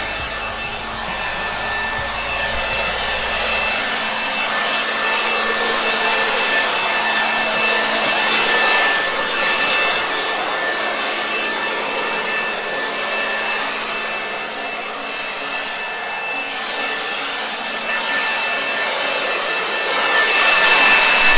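Corded electric leaf blower running steadily: a rushing blast of air with a high-pitched motor whine. It grows louder near the end as it comes closer.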